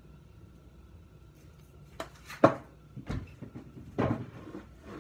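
Spice containers being handled and knocked against the worktop while seasoning: quiet room tone for about two seconds, then a few sharp clatters and rustles, the loudest about two and a half seconds in.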